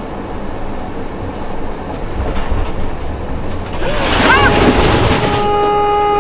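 Road and engine noise inside a car, growing louder, then hard braking with a loud hiss and short tyre squeals about four seconds in, followed by a car horn blaring steadily near the end as a red SUV cuts across in a near miss.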